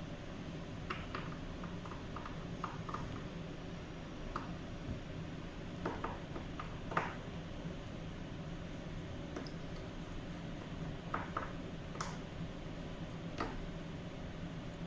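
Scattered light clicks and taps of small hard parts being handled, as of a wristwatch being worked by hand, over a steady background hiss.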